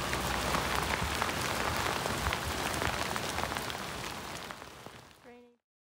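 Steady rain falling on harbour water and docks, with many sharp drop hits close by. It fades out and cuts off about five and a half seconds in.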